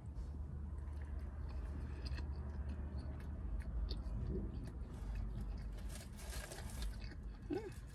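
A person chewing a mouthful of taco close to the microphone, with small soft crunches, over a steady low hum; a brief hummed voice sound near the end.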